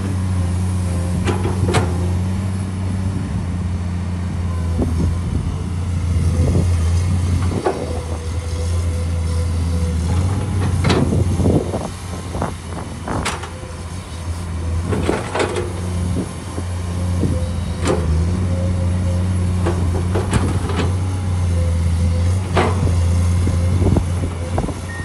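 Komatsu PC210 excavator's six-cylinder diesel engine running with a steady low drone, while its bucket works loose soil, giving irregular clunks and knocks every second or two. The knocks bunch together about halfway through, where the engine note dips briefly.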